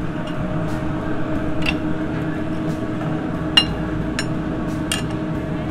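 Steel knife and fork clinking against a ceramic plate about four times while cutting egg-battered chicken; the loudest clink comes a little past halfway and rings briefly. A steady hum runs underneath.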